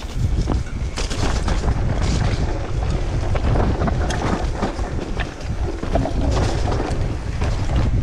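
Wind rumbling over the microphone of a riding mountain biker's camera, with tyres running on a dry dirt and gravel trail and frequent clicks and rattles from the bike over rough ground.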